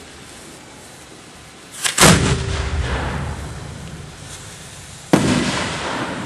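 Aerial fireworks shells going off at the firing racks: two loud booms about three seconds apart, each fading away slowly.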